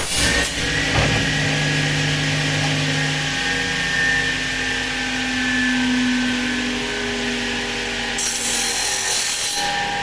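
Özçelik Spark metal-cutting machine running with a steady motor hum made of several tones, some shifting slightly in pitch. A short hissing, grinding burst comes right at the start and another comes about eight seconds in.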